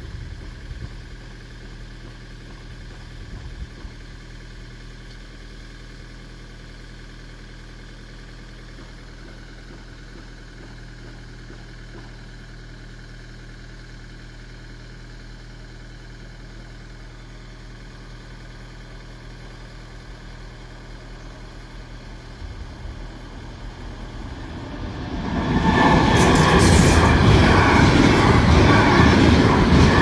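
Hector Rail freight train arriving at the level crossing and passing, its wheels and wagons rumbling loudly. The sound builds from about 23 s in and is loud from about 25 s on; before that there is only a quiet steady background.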